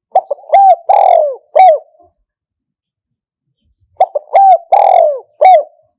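Spotted dove cooing, in two phrases about four seconds apart. Each phrase is a quick run of short coos, then a long coo that falls in pitch, then a shorter final coo.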